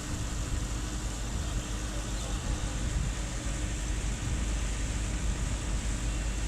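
A ship's engine running with a steady low rumble and hum.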